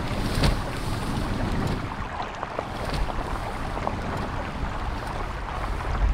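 Mercedes-Benz GLE SUV driving through a shallow rocky stream: water splashing and spraying from the tyres, with gravel and stones clattering and a low rumble underneath.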